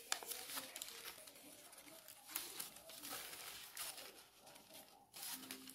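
Faint, irregular rustling and light clicks of dress fabric being handled while it is sewn.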